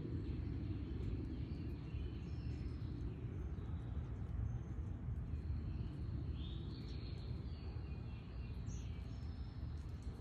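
Backyard ambience: a steady low rumble with faint bird chirps, one clearer chirp about two-thirds of the way through.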